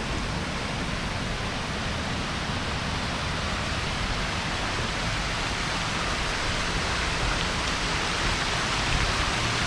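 Water from a large ornamental fountain splashing and falling steadily into its basin, growing slowly louder.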